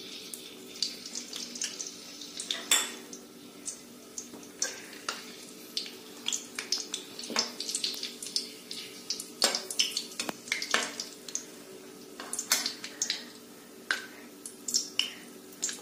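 Whole spices (bay leaves, cloves, peppercorns, cardamom) frying in hot oil and ghee in a metal kadhai, with irregular crackling ticks and a metal ladle clinking and scraping against the pan as they are stirred. A faint steady hum runs underneath.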